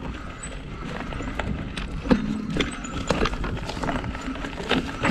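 Surly Krampus 29+ mountain bike rattling and clattering on a rocky downhill trail: irregular clicks and knocks from the bike over a steady low rumble of tyres rolling on dirt.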